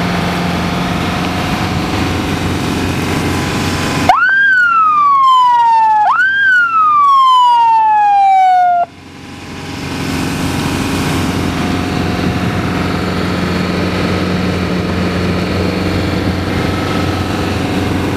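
Tracked snow ambulance running through deep snow, its engine and tracks a steady drone. About four seconds in, its siren wails twice, each wail rising quickly and then sliding slowly down, and it cuts off suddenly about halfway through. The engine and track noise then builds back up.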